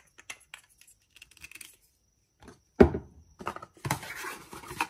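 Hands handling cosmetic bottles and cardboard packaging: small clicks and rustles, a sharp knock about three seconds in, then about a second of scraping, rustling noise near the end.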